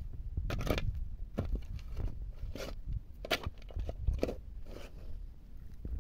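Shovel blade digging into dry, stony soil: repeated uneven strokes of crunching and scraping through earth and gravel, about one or two a second.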